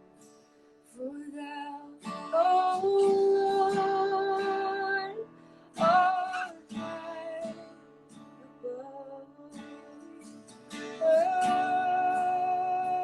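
A woman sings a slow worship song over a strummed acoustic guitar, holding long notes in phrases separated by short guitar-only gaps.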